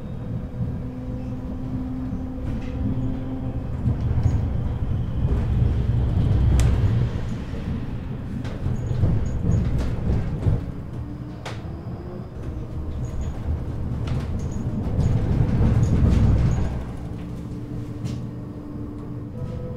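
Trams running on street track: a low rumble of wheels and motors that swells twice as trams pass, with sharp clicks of the wheels over rail joints and short steady motor tones.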